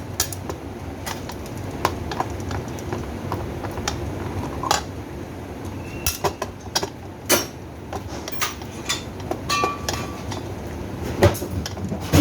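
Irregular clinks and knocks of parts and tools being handled while a washing machine is taken apart, over a steady low rumble.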